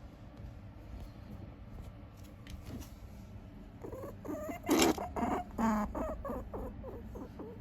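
A pet rabbit vocalizing: a quick series of short, pitched little calls, the loudest about five seconds in, over a low steady hum.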